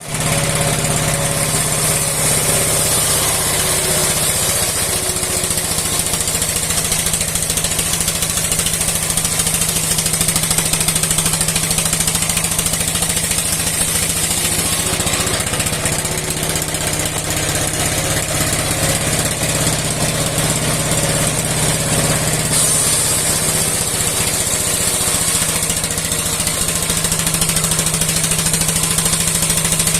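An old engine, about 60 years old, running steadily with a fast, even beat, driving a steel wood-splitting saw.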